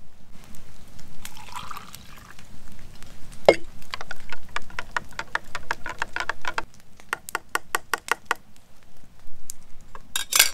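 A drink poured from a bottle into a cup, glugging in quick, even pulses for about four seconds, after a sharp click about three and a half seconds in.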